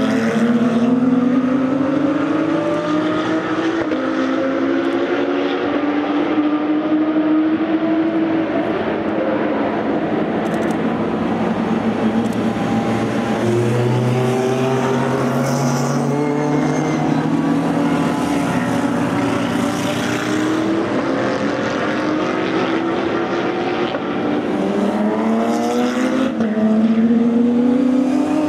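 Race car engines at full throttle with loud open exhausts, several cars overlapping. Their notes climb in pitch and drop back with each upshift.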